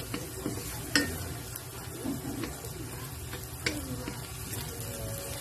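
Garlic and onion sizzling as they sauté in oil in a kawali (wok-style frying pan), stirred with a spatula that knocks sharply against the pan about a second in and again near four seconds.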